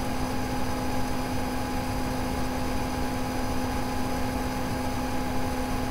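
Steady room noise with no speech: an even hiss with a constant low hum and a couple of higher steady tones, unchanging throughout.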